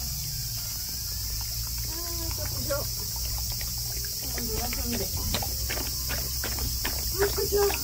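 A Doberman lapping water from a bowl: a quick run of wet laps, about three a second, through the second half. A steady high drone of insects runs underneath throughout.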